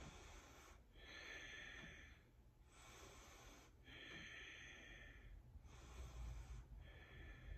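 A woman's faint, slow breathing while she holds a yoga pose: soft, airy inhales and exhales, about three full breaths.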